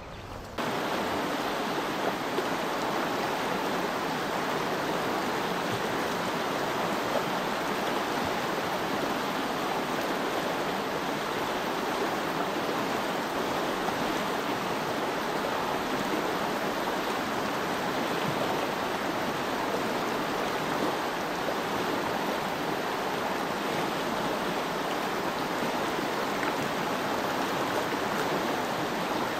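Fast mountain stream rushing over rocks: a steady, even wash of flowing water. It starts abruptly about half a second in.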